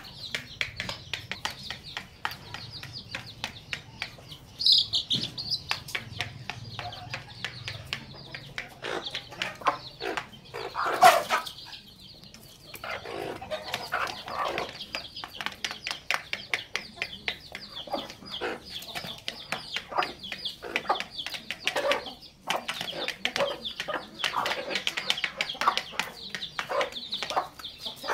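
Hens pecking couscous off a plastic plate: rapid, irregular tapping, with chicks peeping high and hens clucking. One louder burst about eleven seconds in.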